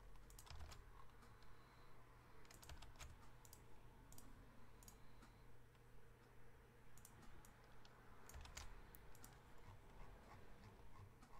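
Faint, scattered clicking of a computer keyboard, in short clusters of a few keystrokes at a time, over near silence.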